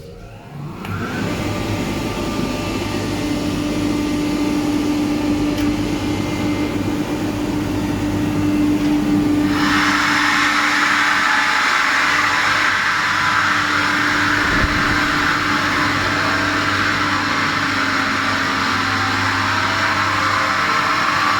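Kaeser ASK 32 rotary screw air compressor starting up and running, building pressure into an air receiver. It starts with a quick rising whine and settles into a steady hum. About nine and a half seconds in, a loud airy hiss joins and the machine grows louder, then runs on steadily.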